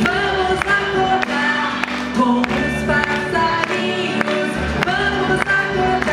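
A group of children singing a song in unison over instrumental backing with a steady beat.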